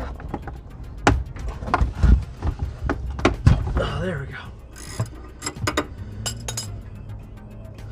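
Hand wrench turning the nut on a sway bar end link: irregular metal clicks and clinks, busiest in the first four seconds.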